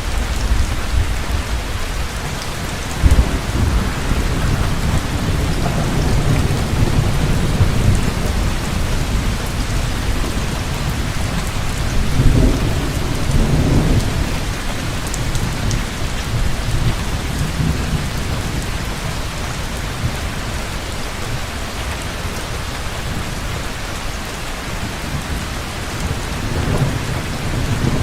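Heavy rain pouring steadily with rolling thunder, the thunder swelling in low rumbles near the start, in the middle and again near the end.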